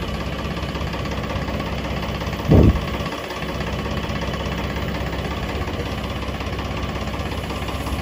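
Tractor diesel engine running steadily, with one short, dull thump about two and a half seconds in.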